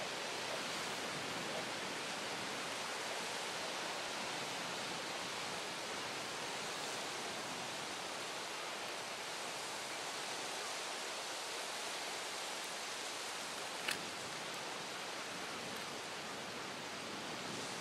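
Steady wash of small waves breaking and running up a sandy, pebbly shore, with a single short sharp click near the end.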